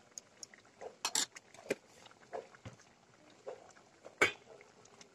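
Catfish in coconut milk simmering in a stainless steel pot, bubbling with irregular small pops and blips, plus one sharper click about four seconds in.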